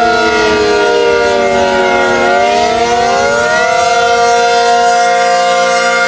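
Outdoor tornado warning sirens sounding together in several tones, winding slowly down, rising again about two seconds in, then holding steady.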